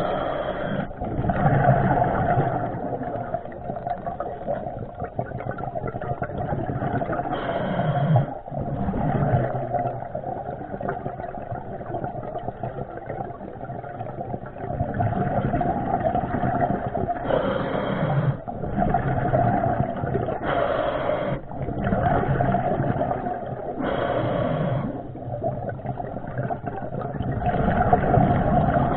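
Muffled underwater noise picked up through a waterproof camera housing while a diver swims and handles a pole spear: a steady watery rush that swells louder for about a second every few seconds.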